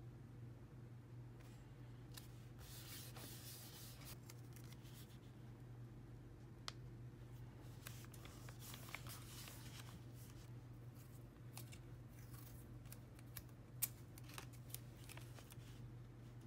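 Faint rustling and crinkling of paper photocards and washi tape being handled and pressed onto a journal page, with scattered light clicks and one sharper tick near the end, over a low steady hum.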